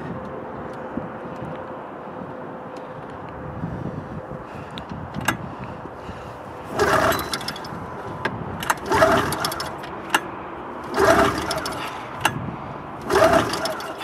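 An old snowmobile's two-stroke engine cranked on its recoil pull-starter four times, about two seconds apart, each pull a short whirring turn-over that dies without the engine firing. It is a cold, long-stored engine that won't start, which the owner puts down to plugs needing cleaning and a lack of prime.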